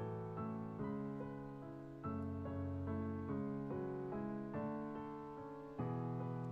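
Background piano music: slow, gentle chords struck about every second and a half, with notes held between them.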